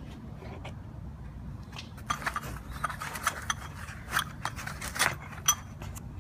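Hands fitting a replacement LED angel-eye bulb into a headlight housing: a rapid, irregular run of sharp clicks and scrapes of small hard parts, starting about two seconds in and stopping shortly before the end.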